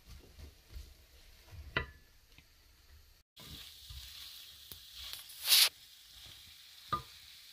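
Chopped peppers and onions frying in a coated pot, stirred with a wooden spatula: knocks and scrapes of the spatula against the pot, with a steady sizzle that comes in after a brief break about a third in. The loudest scrape comes about two-thirds through.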